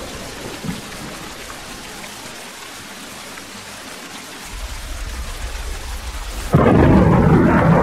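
Steady rain in a thunderstorm, with a low rumble of thunder building about halfway through. Near the end the sound abruptly becomes much louder and deeper.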